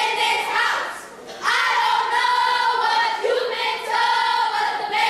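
A children's step team chanting in unison: a short call, then drawn-out held calls from about a second and a half in.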